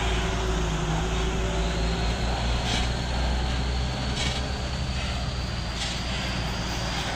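Diesel engine of a tanker semi-truck running with a steady low drone as it pulls away, mixed with tyre and traffic noise from cars passing close by. The drone fades a little toward the end.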